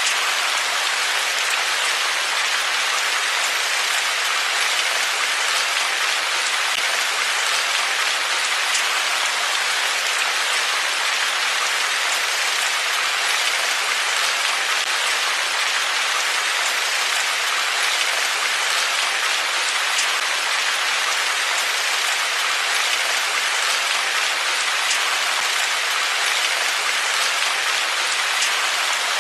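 Steady heavy rainfall, a dense even hiss of drops falling on surfaces, with a few faint drip ticks.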